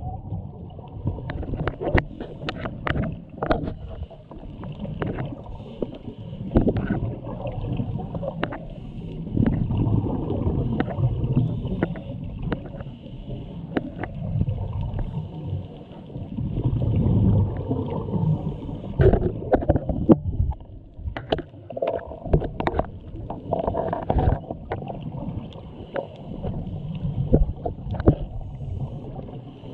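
Muffled underwater sound through a diving camera's waterproof housing: a low rumbling of water, swelling every few seconds the way a diver's exhaled regulator bubbles do, with frequent sharp clicks and knocks against the housing.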